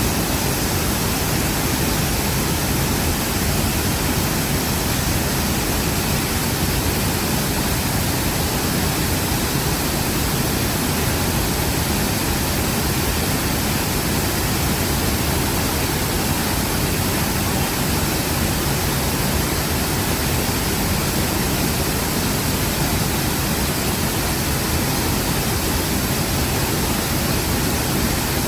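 A large waterfall at full rainy-season flow, pouring over big rocks: a loud, steady rush of water that does not change.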